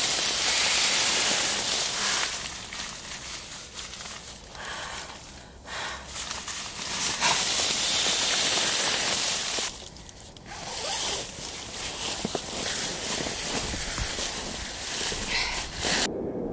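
Crinkly rustling of gear bags and a down sleeping bag being handled and pulled out, coming and going with brief lulls. It cuts off abruptly just before the end.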